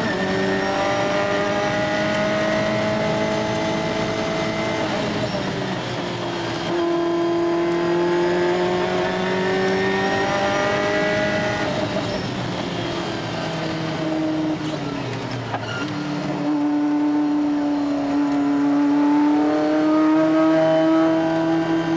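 Ferrari F40's twin-turbo V8 engine under hard acceleration, heard from inside the cabin. Its pitch climbs and drops back several times as the car goes up through the gears and lifts for bends.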